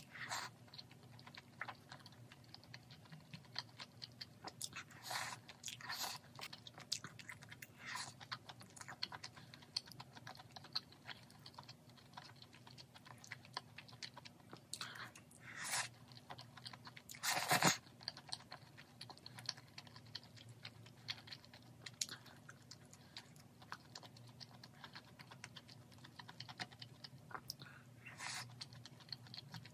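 Close-up chewing of spicy grilled pork intestines (gopchang), with wet mouth smacks and small clicks throughout. The loudest smack comes a little past halfway.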